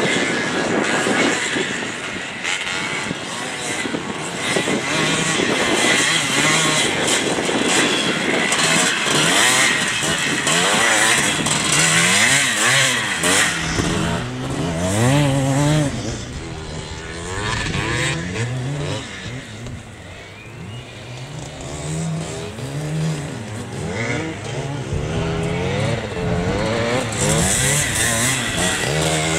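Vintage off-road motorcycle engine revving up and dropping back again and again as the rider works the throttle, its pitch rising and falling throughout. It is quieter for a few seconds around two-thirds of the way in.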